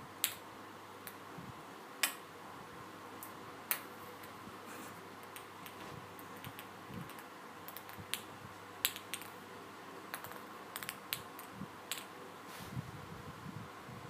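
A series of irregular sharp clicks and taps, some louder than others, over a faint steady hum.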